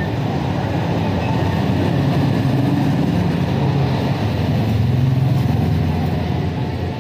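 A steady low rumble of a running engine, with no separate clicks.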